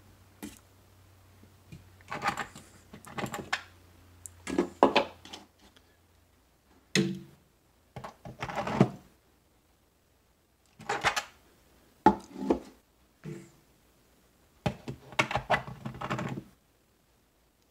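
Hollow 3D-printed plastic animal busts being lifted off and slipped onto a printed wall bracket, clicking and knocking against the bracket and wall in about six short clattering bursts with pauses between them.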